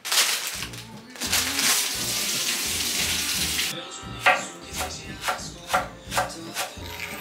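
Tap water runs into a kitchen sink for a few seconds. Then a kitchen knife slices green onion on an end-grain wooden cutting board, about two cuts a second, over light background music.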